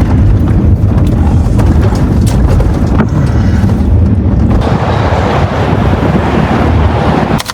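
Heavy wind buffeting the microphone over a steady low rumble. It turns hissier and fuller about halfway through.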